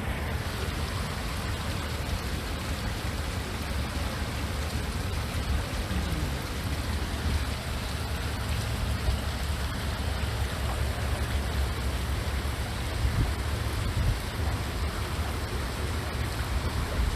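Heavy rain pouring down steadily, with a steady low rumble underneath.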